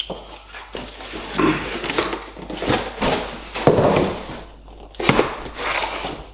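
Cardboard boxes rustling and scraping as a long product box is pulled out of a shipping carton and handled, with a sharp knock about five seconds in as the box is set down on a wooden table.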